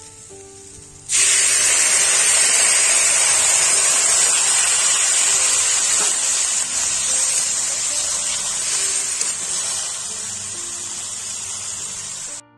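Loud, steady sizzling hiss that starts suddenly about a second in and slowly dies down. It is water hitting a hot pan of spiced, fried potatoes and cauliflower as the curry's gravy is made.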